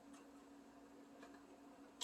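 Near silence: a steady low hum with two faint ticks.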